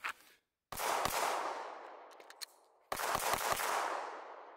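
Pistol shots with a long rolling echo. Two shots come about a second in, then after a pause a rapid string of several more shots follows about three seconds in. The echo fades away after each group.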